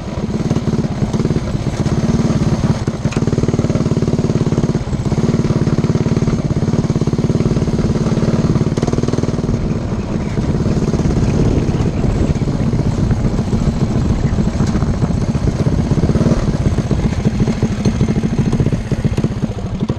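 Predator 212 Hemi single-cylinder four-stroke engine on a Coleman CT100U mini bike running under way at a steady speed, a loud even drone with a few brief dips in revs.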